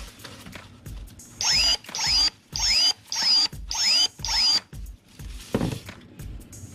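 Cordless brushless electric pruning shears firing six times in quick succession, each a short motor whine as the blade snaps shut and reopens, snipping through thin branches. A dull thump follows about a second later.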